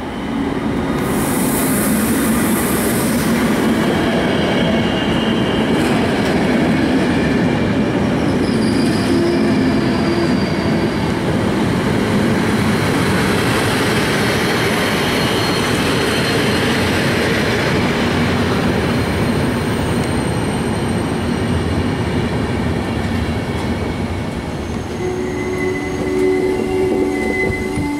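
EU160 electric locomotive passing with an Intercity passenger train, followed by a line of coaches rolling steadily by with loud wheel-on-rail noise. High wheel squeal comes in near the end.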